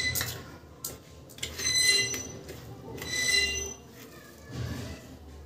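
Metal spoon scraping and clinking on a steel plate while stirring dry ground spice masala. The plate rings briefly three times: at the start, about one and a half seconds in, and about three seconds in.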